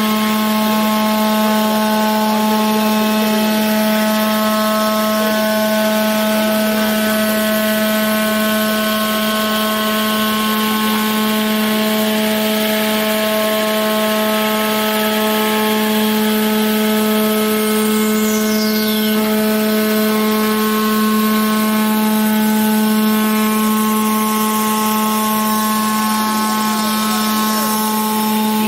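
CNC milling machine's spindle running steadily while a diamond milling cutter grinds glass under coolant spray: a steady hum with several higher steady tones over a hiss of spray and cutting. A brief falling high whistle sounds about two thirds of the way through.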